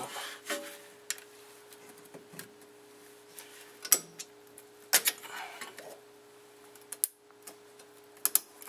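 Scattered sharp metallic clicks and clinks of a screwdriver prying a spring-steel clip into place on a rear disc-brake caliper, the loudest about four and five seconds in, over a faint steady hum.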